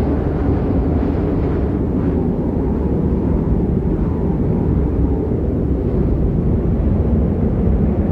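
Steady low rumble of wind buffeting the microphone in a snowstorm.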